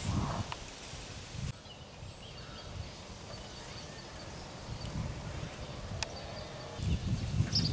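Outdoor ambience at an aviary: uneven low rumbling noise on the microphone with a few faint, high bird chirps, and a single sharp click about six seconds in.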